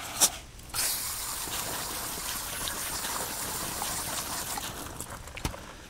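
Garden hose spray nozzle spraying water onto a hanging rabbit carcass, the rinse water splashing off it. The spray starts about a second in, runs steadily and eases off near the end.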